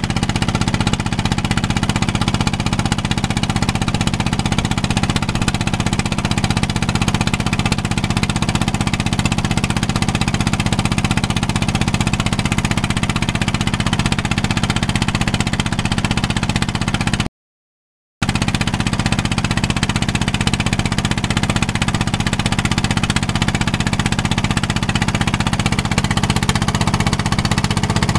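Engine of a wooden fishing boat running steadily under way, a loud, even low drone. The sound drops out for about a second around two-thirds of the way through.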